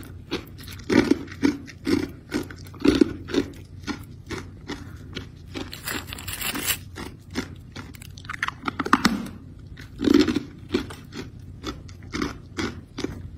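Hard crushed ice being bitten and chewed in repeated crunches, some about a second apart, with a brief rustle of the plastic bag of ice near the middle.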